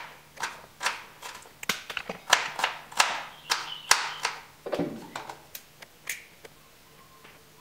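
Kitchen knife chopping red onion on a plastic cutting board: a run of sharp, uneven chops that thins out a little past halfway, leaving a few softer taps.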